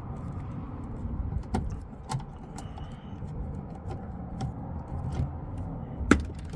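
A long bolt being hand-unscrewed from a car's interior door panel with a 7 mm nut driver: scattered light metal clicks and scrapes over handling noise, with one sharper knock about six seconds in.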